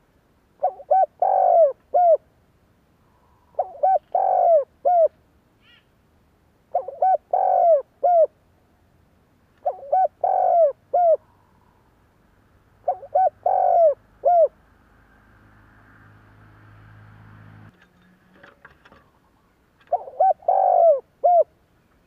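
Spotted dove cooing: a phrase of a few short notes around one longer note, repeated about every three seconds five times, then once more after a pause. In the pause a faint hum swells and stops suddenly, followed by a few clicks.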